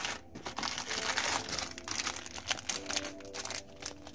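Plastic jewellery packets crinkling and rustling as a hand sorts through a box full of them, in quick irregular crackles. Background music with steady tones comes in over the second half.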